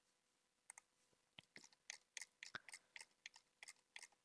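Faint, irregular clicking of a computer mouse and keyboard: a dozen or more short clicks, starting about half a second in and coming several a second near the middle, over a faint steady tone.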